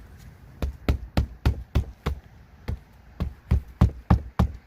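Hammer driving roofing nails through roll roofing: about a dozen quick, sharp blows at roughly three a second, with a short pause midway.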